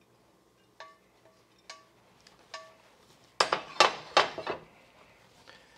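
Wooden spatula tapping and scraping a stainless steel frying pan as fried rice is scraped out onto a plate: three light ringing taps about a second apart, then a burst of louder scraping and knocking about three and a half seconds in.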